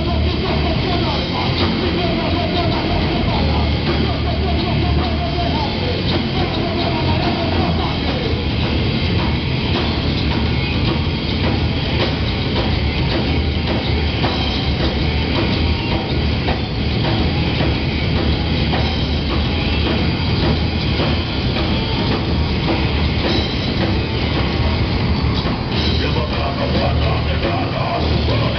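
Live heavy metal band playing loud and steadily without a break: electric guitars, bass guitar and drum kit, with a vocalist singing into a microphone.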